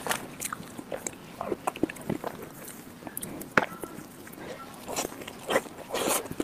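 Close-miked eating of soft chocolate lava mousse cake: wet, sticky mouth sounds and lip smacks as spoonfuls are taken off a metal spoon, with scattered short clicks and one sharper click about halfway through.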